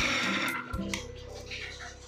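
Kitchen mixer grinder switched off after grinding a wet spice paste: the motor's whine falls in pitch and dies away within the first half-second, followed by a few sharp clicks as the steel jar is handled on the base. Background music continues underneath.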